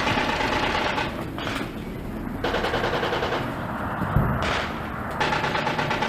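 Sustained bursts of automatic machine-gun fire, each about a second long, one after another with short gaps. A single low thud about four seconds in.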